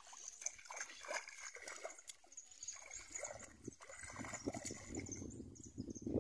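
Faint splashing and squelching of feet wading through shallow, muddy lagoon water, with high chirping behind it. A low wind rumble on the microphone builds from about four seconds in.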